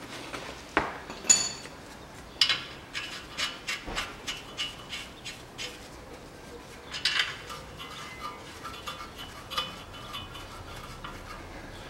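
Metal clinks, taps and knocks of tools and suspension parts while the lower ball joint is started into the steering knuckle. The clicks come at about three a second for a few seconds in the middle, with another cluster a little later.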